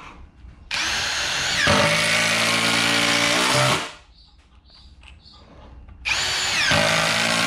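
Cordless drill driving long wood screws into pressure-treated 2x6 lumber: two runs of about three seconds each, the motor's whine dropping in pitch as each screw bites and takes load. Faint knocks between the runs.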